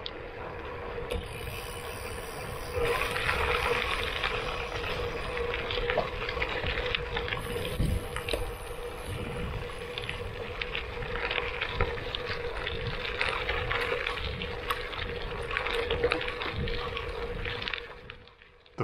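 Gravel bike riding over hard-pack gravel: the tyres crunch over loose stones with small clicks, and there is wind noise on the camera's microphone. It gets louder about three seconds in and fades out near the end.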